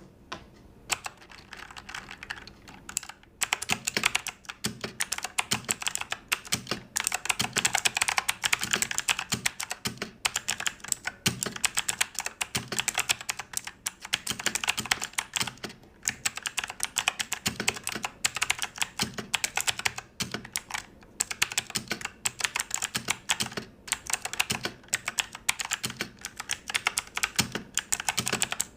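Fast, continuous typing on a Fantech MaxPro MK851 full-sized mechanical keyboard, a dense clatter of key clicks broken by a few short pauses.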